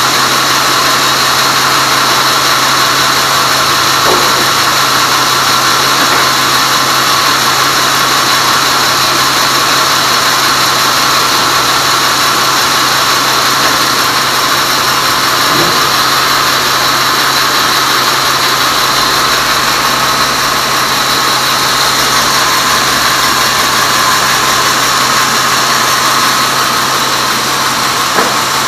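Large Tong Yang band sawmill running steadily with no cut under way, a constant machine drone with a steady hum. A couple of faint knocks sound along the way.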